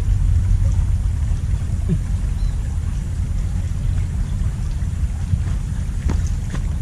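Steady low rumble of wind buffeting the microphone over the flow of a small ditch, with a few faint ticks near the end.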